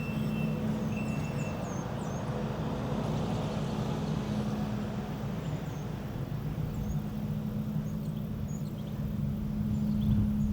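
Steady low drone of a running vehicle engine, with a reversing alarm beeping over the first second or so and small birds chirping now and then.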